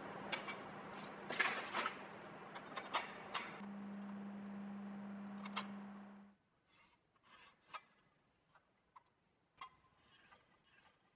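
Sharp metallic clicks and clinks as locking pliers are released from a tacked steel shelf, over a steady electrical hum. About six seconds in the hum stops, leaving only faint taps and scratches as the steel shelf is handled and marked with a pencil.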